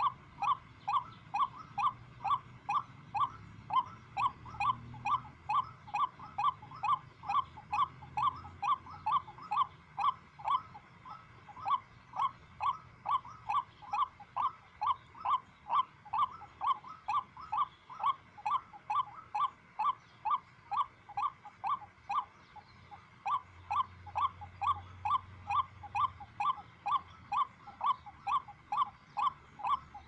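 White-breasted waterhen calling: one short, slightly falling note repeated about two and a half times a second in a long, very even series, with one brief pause about three-quarters of the way through.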